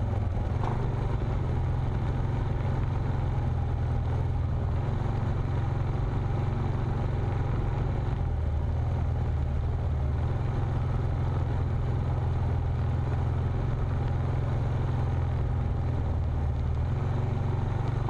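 Steady low drone of an off-road vehicle's engine and driving noise on a dirt trail, with small shifts in the engine note about halfway through and near the end.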